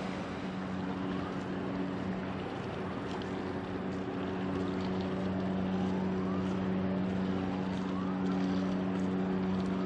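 Steady low engine drone of a ship under way, with wind and rain hissing on the microphone.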